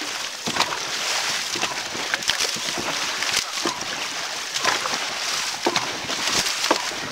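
Dragon boat paddles striking and pulling through the water in unison, a splash about once a second, over steady rushing water and wind on the microphone.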